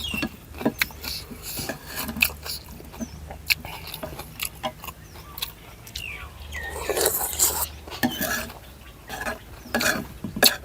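Eating from a bowl of noodle soup: utensils click and clink against the bowl many times, with a longer noisy hiss about seven seconds in.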